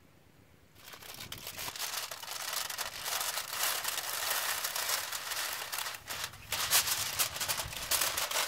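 Aluminium foil crinkling as a sheet is pulled off the roll and spread out, starting about a second in as a continuous rustle broken by sharper crackles.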